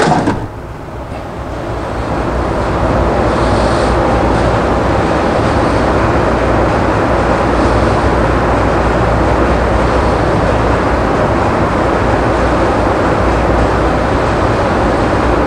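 Steady mechanical running noise with a low hum, building up over the first two seconds and then holding even.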